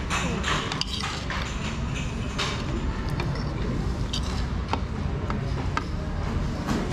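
Metal spoons and forks clinking and scraping against ceramic plates and a serving bowl, with a handful of short sharp clicks spread through, over a steady room hum.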